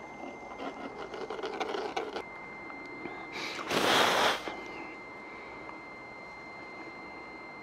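Light handling clicks, then one loud sniff about a second long as the engine oil is smelled for signs of contamination, over a faint steady high tone.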